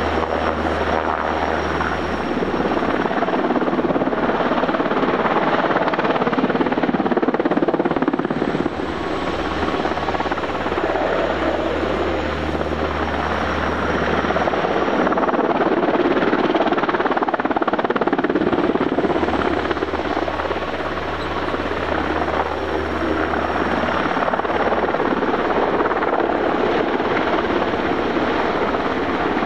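UH-60J rescue helicopter's rotor and twin turboshaft engines running, a continuous loud noise that swells and eases a little.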